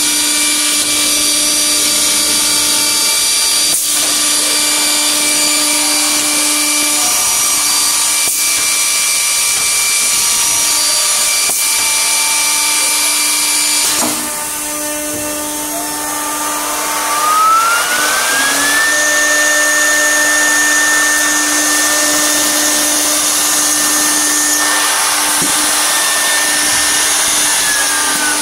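CNC drilling and milling center for furniture panels running: a steady, loud machine whine with hiss as the head works the board. About halfway the level drops. Then a motor whine rises over about three seconds, holds steady, and starts to fall near the end.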